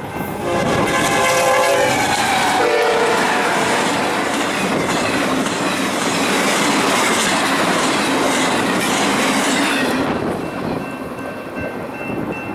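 BNSF freight locomotive's horn blowing as it passes, its pitch dropping about two and a half seconds in, followed by the loud noise of an intermodal container train rolling by, its wheels clattering over the rails. The train noise falls away about ten seconds in.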